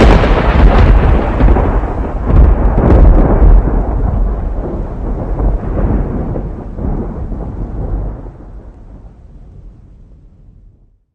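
A loud deep rumbling boom that breaks in suddenly, with a few sharp cracks in its first few seconds, then slowly dies away over about ten seconds and cuts off just before the end.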